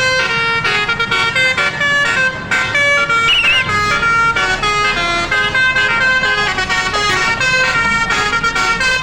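Multi-tone 'telolet' air horn playing a quick tune, several notes sounding together and changing every fraction of a second, then cutting off suddenly at the end.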